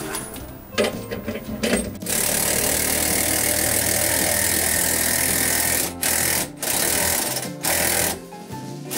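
Cordless impact driver cranking a scissor jack's screw to lower the van back to level: a steady rapid buzz-hammering that starts about two seconds in and runs for about four seconds, then three short bursts.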